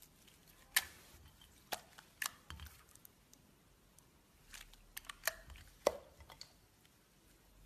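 Clear slime with metallic foil flakes being pressed and stretched by hand, giving scattered sharp clicks and pops, the loudest about a second in and just before six seconds.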